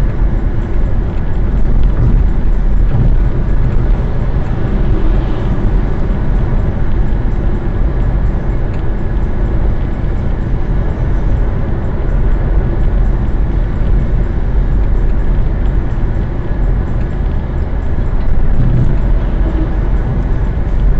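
Steady road and tyre noise of a car cruising at about 100 km/h, heard from inside the cabin.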